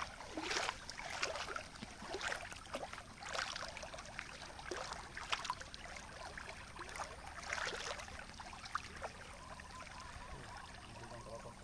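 Shallow river water splashing and sloshing as a cast net is hauled in by its rope and a person wades through the water. The splashes come irregularly and ease into a steadier flowing-water sound near the end.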